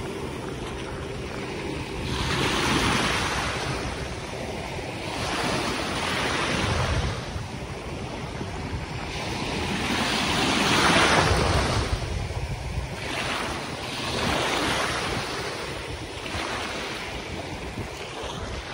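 Small sea waves washing in over shallow water, a rushing surge every few seconds, the loudest about eleven seconds in, with wind buffeting the microphone.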